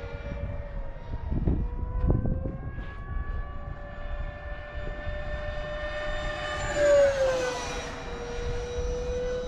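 Freewing Stinger 90's 90 mm electric ducted fan whining in flight. About seven seconds in it swells to a loud pass, and its pitch drops as the jet goes by. Two low rumbles come about a second and a half and two seconds in.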